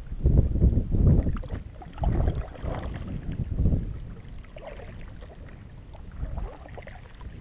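Canoe paddling: wooden paddle strokes through lake water, with wind buffeting the microphone in uneven surges that are strongest over the first few seconds and then ease off.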